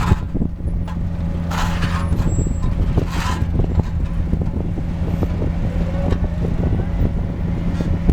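Heavy diesel engine of an asphalt paver running steadily, a low drone, with three short hissing bursts in the first few seconds and scattered light clicks.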